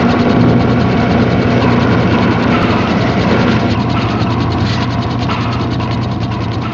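Dense, rapid mechanical clicking and whirring, like a ratchet or gear train turning, over a steady low hum.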